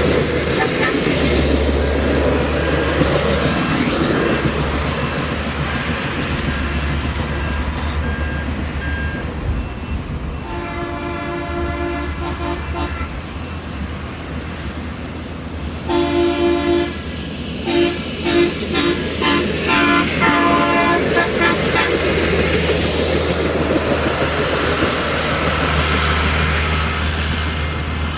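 Air horns on railroad track-gang equipment sounding over a steady low engine rumble. One long blast comes about ten seconds in, then a string of short toots between about 16 and 21 seconds.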